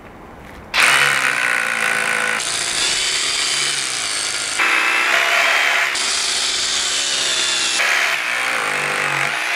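DeWalt DCH263 18V cordless SDS-Plus rotary hammer drilling down into concrete with a 10 mm bit in hammer-drill mode. It starts about a second in and runs steadily, changing in tone a few times, and goes in with little effort.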